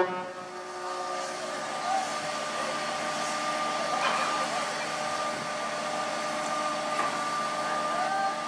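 Steady rushing background noise, with a few faint short calls and a faint high steady tone coming in about seven seconds in.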